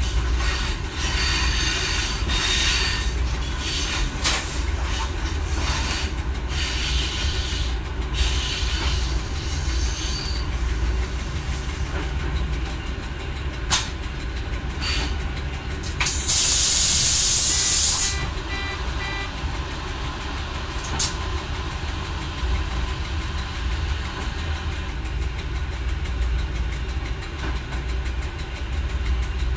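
Y1 diesel railcar running on the line, heard from the driver's cab: a steady low rumble with sharp clicks and knocks from the wheels on the track, thickest in the first ten seconds. About sixteen seconds in comes a loud hiss of air lasting about two seconds, the loudest sound here.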